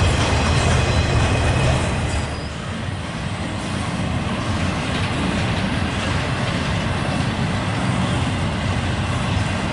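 Freight train rolling past, its wheels running on the rails in a steady rumble that drops a little about two and a half seconds in.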